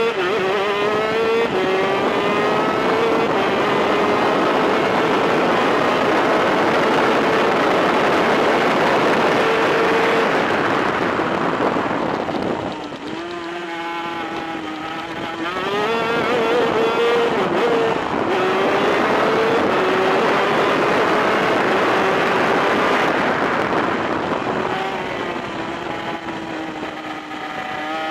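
VM 250cc twin-cylinder two-stroke superkart engine heard onboard, running at high revs down a straight. About twelve seconds in the revs drop sharply as the driver lifts for a corner, then climb back up and hold before easing down again near the end.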